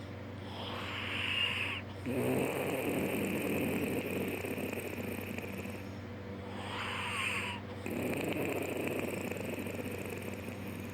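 A man snoring deeply after surgery, two breath cycles about six seconds apart. Each cycle is a higher, hissing breath of about a second and a half, a short break, then a longer, lower rasping snore.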